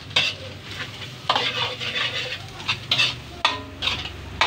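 Metal spatula scraping and clanking against a steel wok in repeated strokes, some ringing briefly, as pork is stir-sautéed, with a light sizzle of frying underneath.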